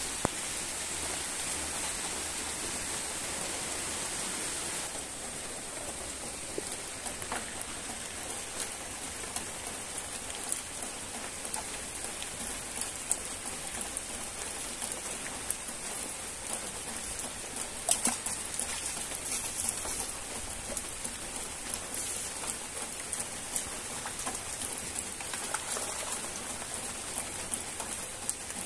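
Steady rain falling, with scattered close drop ticks over an even hiss.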